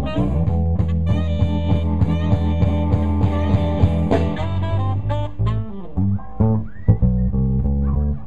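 A live funk band of electric guitar, saxophone, bass guitar and drums playing through a PA, with a heavy bass line. After about five seconds the dense held notes give way to short stabs, drum hits and sliding notes.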